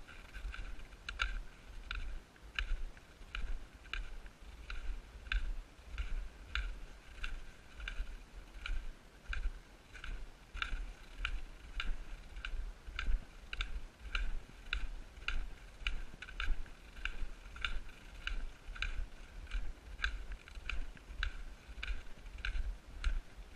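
Footsteps crunching on packed snow in a steady walking rhythm of about two steps a second, each step a crisp click, over a low rumble.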